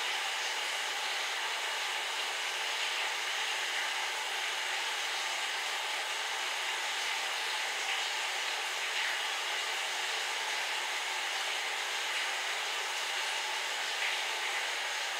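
Electric fan running with a steady, even whoosh.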